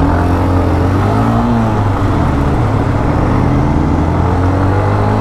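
Hero Xtreme 125R's single-cylinder engine running at road speed, its note wavering up and down in pitch, over a steady rush of wind and road noise.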